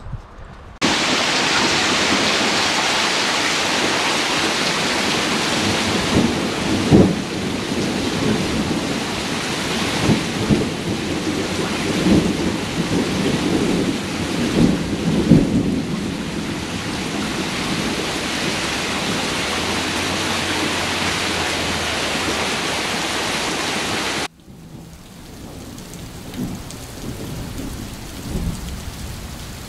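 Heavy rain pouring down in a steady hiss, with a few low rumbles of thunder. Near the end it drops suddenly to a much quieter rain.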